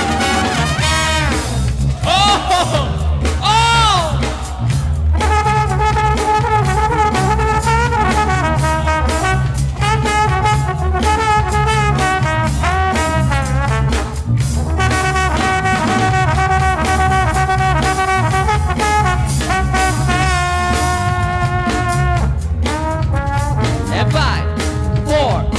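Loud, brass-led dance music played by the DJ over a sound system: held horn notes and a few sliding notes about two to four seconds in, over a steady, heavy bass beat.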